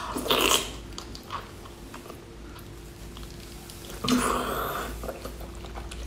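Close-up eating sounds of a person biting and chewing a cooked octopus: a loud, wet bite just after the start, a quieter stretch of chewing, then another loud mouth sound about four seconds in.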